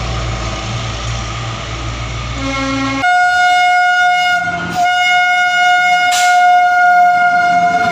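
A diesel train passing with a low engine drone. After an abrupt cut about three seconds in, an Indian Railways WAP-class electric locomotive sounds its horn: a loud, steady, single-pitched blast held for several seconds, with one short break.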